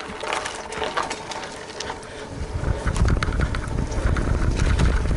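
Trek 920 gravel bike rolling over a dirt and gravel trail, the bike and camera mount rattling with irregular clicks as the tyres crunch. Wind rumbles on the microphone again from about three seconds in.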